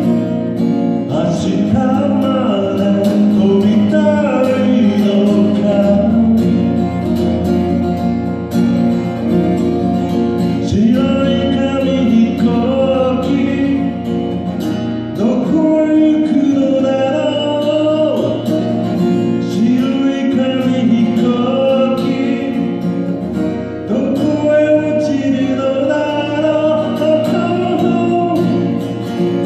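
A man singing a folk song while strumming a Guild JF-55 jumbo acoustic guitar, sung and played without a break.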